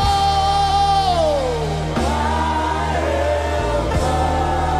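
Live gospel worship music: sustained keyboard chords over a deep bass, changing chord twice, with a voice holding a long note that slides down in pitch about a second in.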